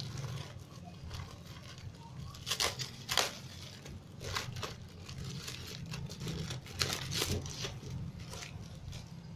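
Clear plastic wrapping crinkling and tearing as it is pulled by hand off a taped paper envelope, in irregular rustles, loudest about three seconds in and again about seven seconds in.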